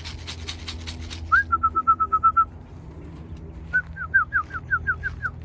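A quick rattle for about the first second, then two runs of short, rapid whistled notes: the first run level, the second a string of downward-slurred notes. It is a pigeon fancier whistling to call a returning racing pigeon down to the loft.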